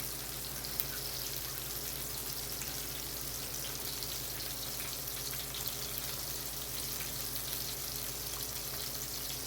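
Meatballs browning in olive oil in a skillet, sizzling steadily with small crackles, over a faint steady low hum.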